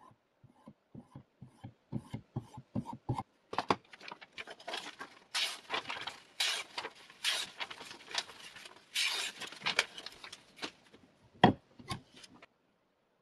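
Short strokes of a hand-held sharpening stone rubbing along a steel knife edge, about three a second, then paper rustling and being sliced by the freshly sharpened blade. A loud knock near the end as the sharpener's knife clamp is turned over.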